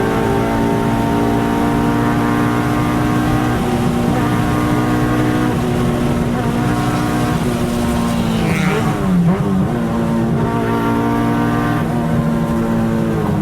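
Car engine running with a steady note that slowly falls in pitch, dips sharply and briefly about eight and a half seconds in, then holds steady again.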